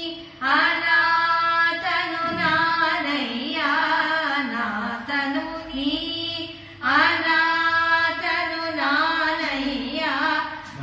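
A woman singing a Kannada devotional song in long, gliding phrases, pausing briefly for breath near the start and again about seven seconds in.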